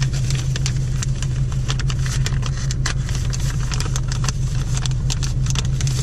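Car engine idling as a steady low hum, heard from inside the cabin, with frequent crisp rustles and crackles of paper and packaging being handled.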